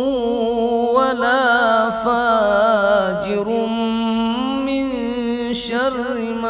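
A man chanting an Arabic supplication in a slow, melodic recitation, drawing the words 'wa la fajir' out into long, wavering held notes.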